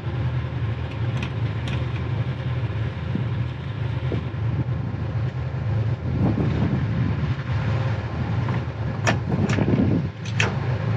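The catamaran's twin diesel engines run steadily in reverse at low revs, a constant low drone, as the boat backs down on its anchor to set it and test the holding. A few short, sharp clicks come near the end.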